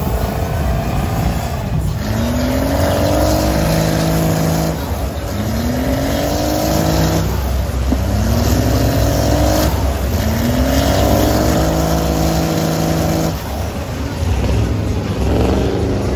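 Lifted mud truck's engine revving hard as it drives through deep mud, its pitch climbing five times in a row, each climb two to three seconds long with short drops between.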